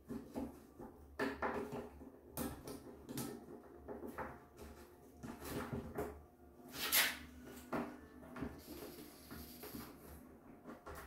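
A metal tubular door latch being pulled and worked in a wooden door: a string of short metallic clicks, scrapes and knocks, the loudest about seven seconds in.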